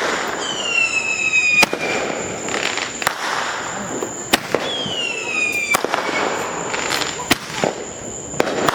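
Fireworks going off: a series of sharp bangs about every second and a half, with crackling between. Twice there is a falling whistle from a whistling firework.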